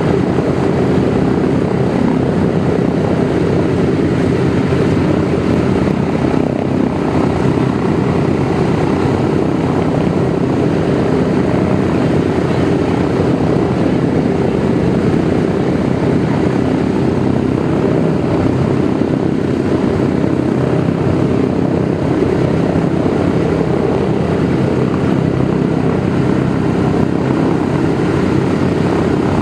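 Douglas DC-3's two Pratt & Whitney R-1830-92 fourteen-cylinder twin-row radial engines running with propellers turning, a loud, steady, deep drone that holds the same pace throughout.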